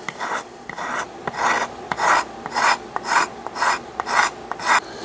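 The side of a chisel scraping the old finish off the beech tote of a Stanley Bailey No. 5 hand plane, in about a dozen short rasping strokes that quicken toward the end.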